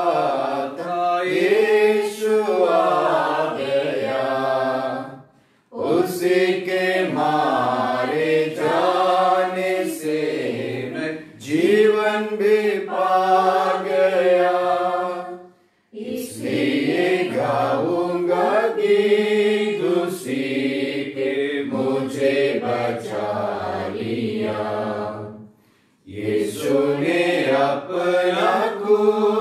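A man singing a Hindi hymn in long phrases, with three short breaks between verses.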